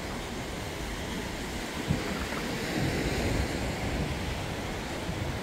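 Steady rush of sea surf against a rocky shore, with wind buffeting the microphone and a small knock about two seconds in.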